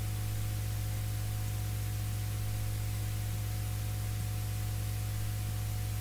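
Steady low electrical hum with an even hiss over it: the background noise of the recording setup, with no other sound.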